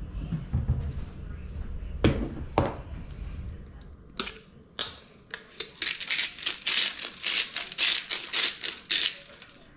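Sea salt grinder being twisted over a bowl of vegetables: two knocks about two seconds in, then a quick run of dry crackling clicks from the grinding mechanism for about four seconds.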